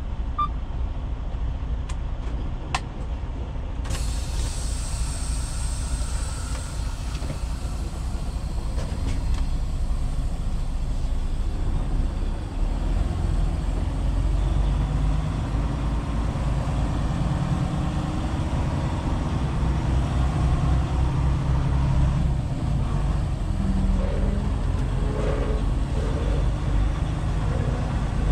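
Semi truck's diesel engine running with a steady low rumble that grows louder from about twelve seconds in. A steady hiss comes in suddenly about four seconds in.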